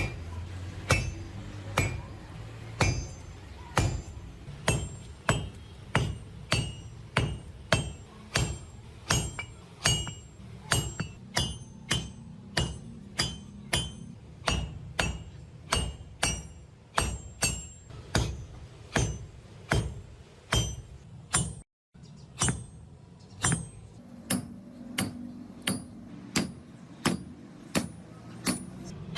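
Hand hammer forging a steel thread tap on an anvil: steady blows at about one and a half a second, each with a bright metallic ring, over a low steady hum.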